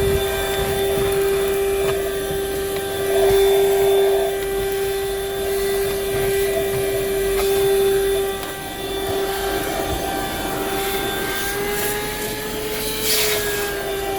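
Buture corded handheld car vacuum running steadily with a high motor whine. Its pitch dips briefly about two-thirds through and rises slightly near the end, as the airflow through the nozzle changes while it is worked over the car interior. There is a short rattle near the end.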